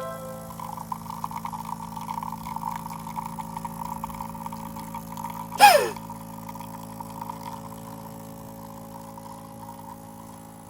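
DēLonghi Magnifica S coffee machine running while brewing: a steady low hum with a buzzing, gurgling pump sound for the first half. About five and a half seconds in there is one sharp, loud burst with a falling tone, then only the quieter hum of the machine.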